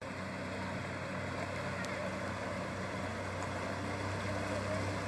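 A pontoon boat's outboard motor running at a steady pace under way, a constant low hum, with the rush of wind and water over it.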